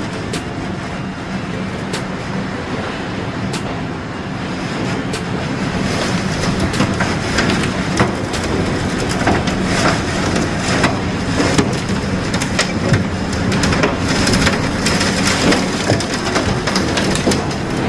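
Strong storm wind blowing steadily with heavy rain, with frequent sharp taps and clicks. It grows somewhat louder about six seconds in.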